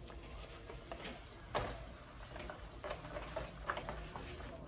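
Cooked instant noodles being stirred in a plastic bowl with a utensil, giving light scraping and scattered clicks, with one sharper knock about one and a half seconds in.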